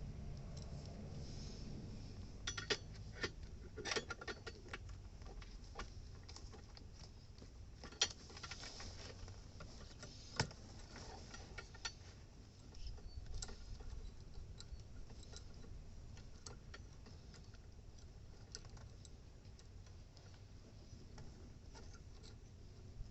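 Light metallic clicks and taps of hand tools being handled during flaring of copper air-conditioner pipe. They come irregularly, with a quick run of clicks a few seconds in and single sharper clicks around eight and ten seconds in.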